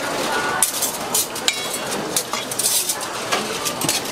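Metal tongs clinking against stainless steel bowls in a series of sharp clicks as greens are picked up and dropped into a stainless mixing bowl, over steady background chatter.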